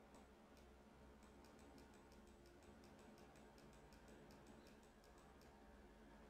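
Near silence with a run of faint, quick clicks, about four or five a second, stopping near the end.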